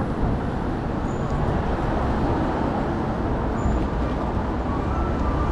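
Steady outdoor city background noise: a constant low rumble of distant traffic under a general hubbub.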